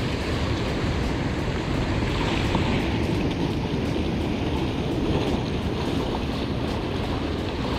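Surf washing steadily on the beach, with wind buffeting the microphone.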